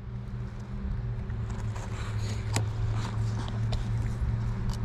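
A steady low mechanical hum over a low rumble, with a few short clicks and taps scattered through it.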